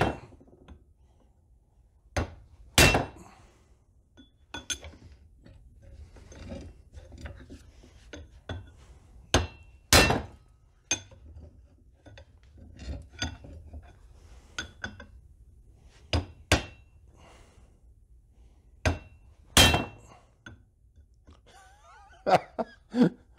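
Hand hammer striking a steel punch to drive out a very tight bolt: an irregular series of sharp metallic blows, some hard and some lighter, in short volleys with pauses between, several leaving a brief ring.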